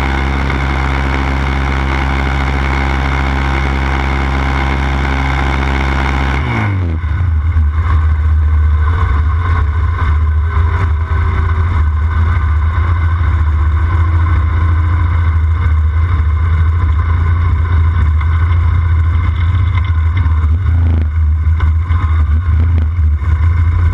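Yamaha Raptor 700 sport quad's single-cylinder engine idling steadily, then about six and a half seconds in it pulls away and the sound turns louder and rougher, with a heavy low rumble, as the quad rides along.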